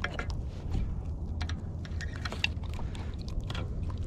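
Irregular light clicks and taps as a small redfish is swung in on the line and grabbed by hand, over a low steady hum.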